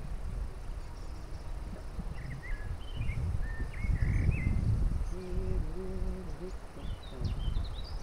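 Songbirds singing in short chirps and warbles from about two seconds in and again near the end, over a steady low rumble.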